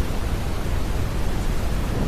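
Synthetic brown noise: a steady, deep hiss heaviest in the bass, blended with soft rain.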